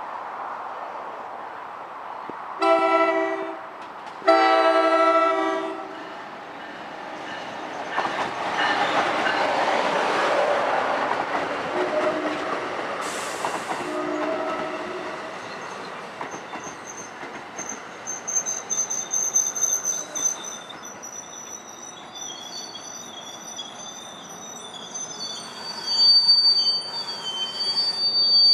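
NJ Transit commuter train of bilevel coaches sounding its horn twice, a short blast and then a longer one, as it approaches. It then rumbles past, and its wheels and brakes squeal high-pitched as it slows into the station.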